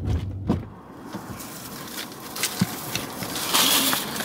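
A brief low car-cabin hum, then a paper bag rustling and crinkling as it is handled, with a few small clicks; the crinkling is loudest near the end.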